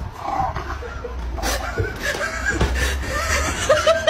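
A person's voice breaking into laughter, with short repeated laughs near the end, over a low rumble on the microphone.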